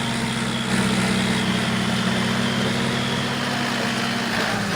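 Heavy vehicle engine running steadily at idle, its pitch dipping slightly near the end.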